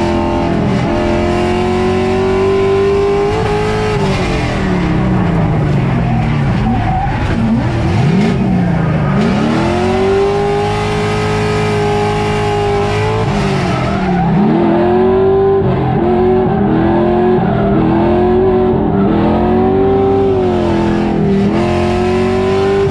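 LS V8 engine of an LS-swapped Nissan S14 drift car revving hard, its pitch climbing, holding and dropping again several times, with tyre squeal mixed in.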